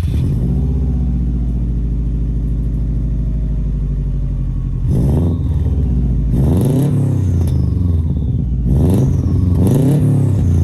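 2003 Subaru WRX's turbocharged flat-four idling loud through a straight-through exhaust with the catalytic converter removed, its idle settling just after starting. From about five seconds in it is revved in four short blips.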